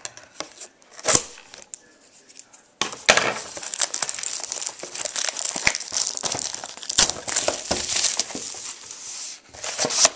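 Plastic shrink wrap being torn and crinkled off a factory-sealed trading-card box: a few scattered crackles and taps, then about three seconds in a dense, continuous crinkling that runs until shortly before the end.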